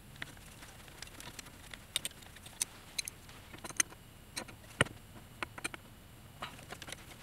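A 4 mm hex key and a wrench working the bolts of a CNC rail's stepper motor mount: scattered light clicks and taps at an uneven pace, with one sharper tap about five seconds in.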